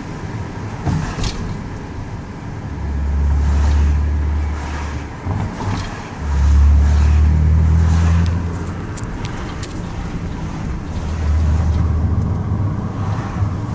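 BMW E39 on the move, with a metallic rattling and knocking from the left rear axle heard as scattered sharp clicks over the road and wind noise, and a deep rumble swelling in three stretches. The knocking points to a loose splash shield or worn rear control arms, which are the uploader's suspects.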